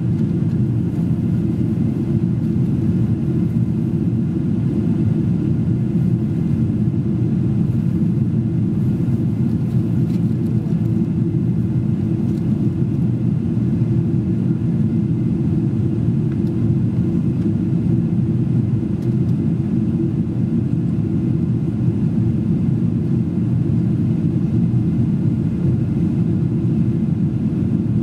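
Steady low rumble of a Boeing 777-200 airliner in flight, heard from inside the passenger cabin: engine and airflow noise, even and unchanging throughout.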